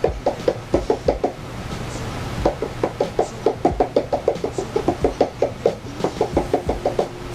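Fingers tapping quickly on the rubber drum pads of an unpowered Akai Professional MIDI controller, testing how they feel: a short run of taps, a brief pause, then a longer run at about six or seven taps a second.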